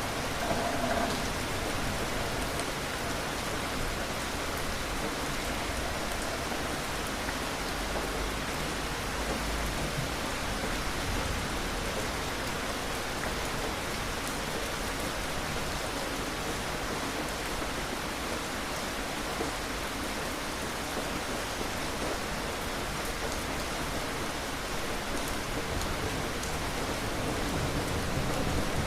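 Steady rain falling, with a low rumble of distant thunder swelling near the end.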